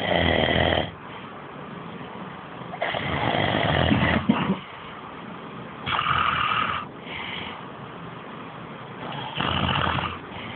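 A man snoring very loudly in his sleep: four long snores, about three seconds apart.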